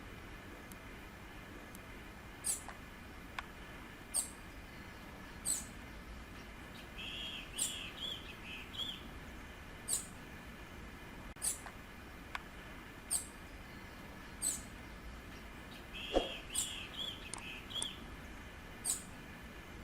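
Bananaquit calling: thin, very high, sharp call notes repeated every second or two, with two brief runs of lower, quick warbled notes about seven and sixteen seconds in.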